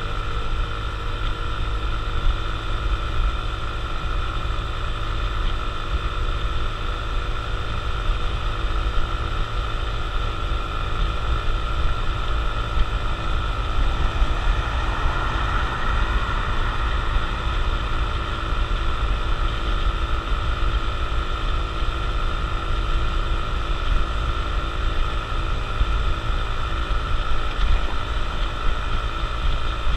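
Honda CT125 Trail Cub's air-cooled single-cylinder four-stroke engine running at a steady speed while riding, with wind and road noise; a brief swell of hiss around the middle.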